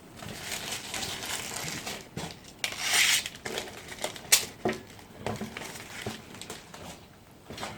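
Packaging being handled and crumpled while barbecue parts are unpacked: rustling and crinkling, a louder crackle about three seconds in, then a few sharp knocks of parts being set down.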